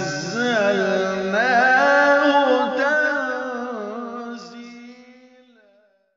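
Melodic Quran recitation in tajweed style: a single voice holding a long, wavering, ornamented note that fades out over the last few seconds.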